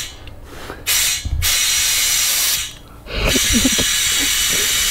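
Compressed air hissing through a tyre-inflator gun into a car tyre, in two long bursts of about two seconds each with a short break between, as the tyre is pumped up to 2.1 bar.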